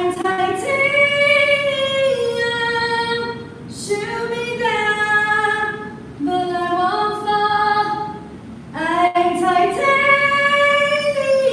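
A woman singing unaccompanied in long held phrases, the pitch stepping up and down, with three short breaks for breath.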